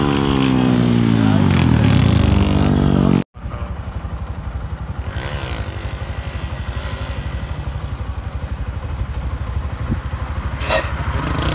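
Motorcycle engines: a small motorcycle's engine note falls in pitch over the first three seconds, then the sound cuts off abruptly. After that, a motorcycle idles with a steady, evenly pulsing low note, and another engine comes up louder near the end.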